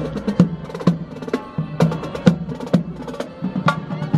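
Marching drum corps playing a rhythmic cadence on snare drums, with quick sharp strikes over music.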